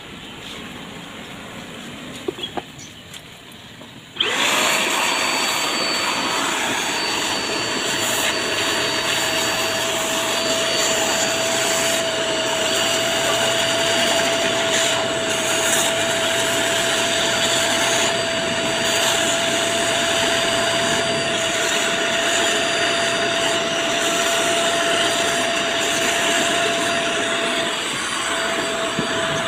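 Vacuum cleaner switched on about four seconds in, then running steadily with a steady hum and a high whine, its corrugated hose used to suck dust out of a car's pleated panel air filter.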